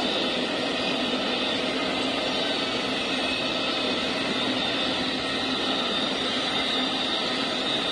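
Amtrak Auto Train's enclosed auto-rack cars rolling past: a steady rush of wheel and rail noise.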